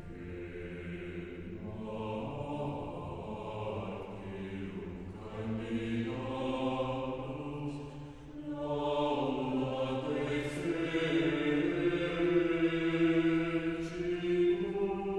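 Choir chanting slowly in long held notes that move from pitch to pitch, sacred choral music.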